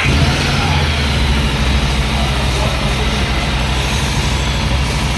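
Harley-Davidson Street 750's V-twin engine running steadily through its stock exhaust silencer, a deep even exhaust note with no revving.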